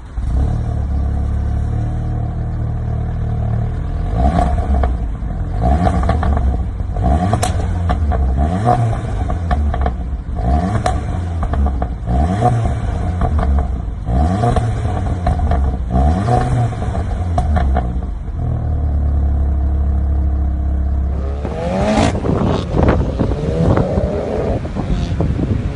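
Audi S1 engine revved in short blips about every second and a half, with sharp crackles and pops from the exhaust as each rev drops. It settles to a steady idle, then a hard acceleration with pitch rising through the gears near the end.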